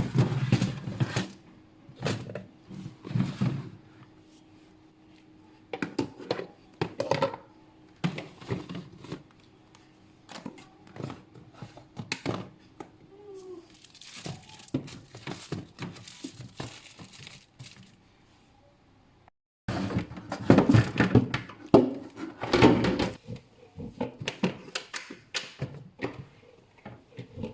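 Food packages and containers being handled while a refrigerator is sorted: irregular knocks and thunks of containers set down, with plastic bags crinkling.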